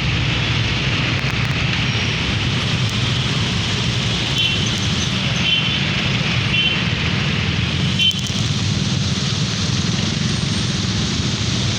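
Road traffic on a rain-wet road: a steady low engine rumble with tyre hiss from passing vehicles, and a short knock about eight seconds in.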